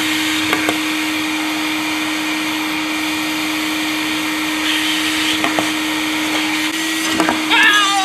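A canister vacuum cleaner runs steadily with a constant motor whine and rushing air, drawing air through a pipe marshmallow cannon attached to its hose. Near the end a person exclaims.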